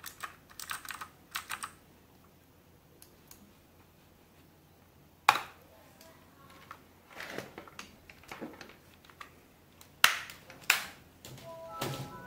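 RK61 mechanical keyboard with clicky blue switches being typed on: keys pressed in short, irregular runs of clicks with pauses between them, and a few single louder clacks.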